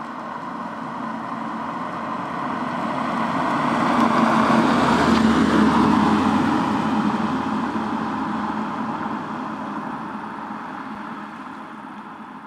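A Mercedes-Benz SL 500 (R129) with a 5.0-litre V8 drives past: engine and tyre noise grow louder as it approaches, are loudest about five or six seconds in as it goes by, then fade steadily as it drives away.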